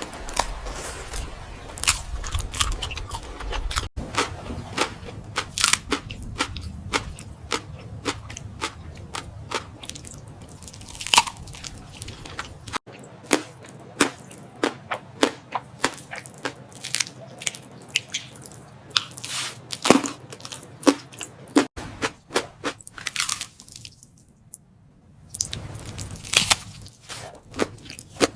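Close-miked eating sounds of salmon: chewing and mouth smacking as a rapid, irregular run of sharp wet clicks. The background changes abruptly three times as the footage cuts from one eater to the next.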